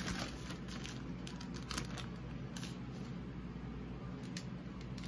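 Faint handling noise: a few soft clicks and rustles as small cardboard makeup boxes are picked up.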